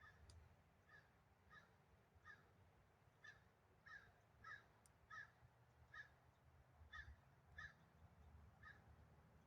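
Faint, short bird calls repeating about every half second to a second, a dozen or so in all.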